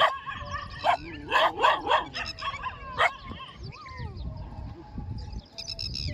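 Desi village dog barking: a run of short sharp barks and yelps in the first three seconds, then quieter whines and yips.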